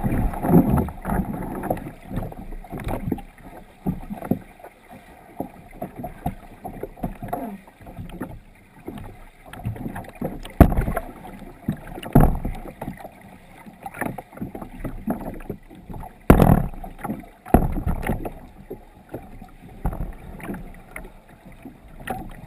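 Underwater sound of a capsized sea kayak, heard through a deck-mounted camera housing: muffled water sloshing and irregular knocks as the paddler thrashes and swims out of the boat, with a few louder knocks in the second half.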